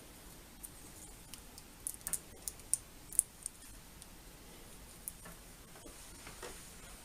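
Light, irregular plastic clicks and snips as the packaging of the TV remote's batteries is worked at with small scissors, with a quick run of sharper clicks about two to three and a half seconds in.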